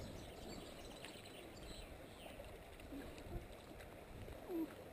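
Faint running water of a shallow, stony river, with a brief low squeak near the end.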